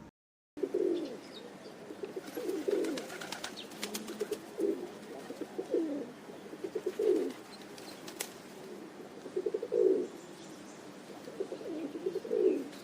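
Pigeon cooing: low calls repeated over and over, with a few sharp clicks mixed in.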